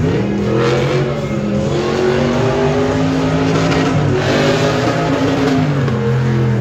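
Lifted Jeep Cherokee off-road truck's engine revving up and down under hard throttle, its pitch climbing in the first half second and falling away near the end.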